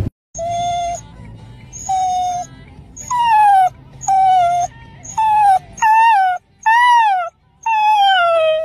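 Rottweiler puppy whining in a string of about eight high-pitched calls, each under a second long, several falling or rising then falling in pitch.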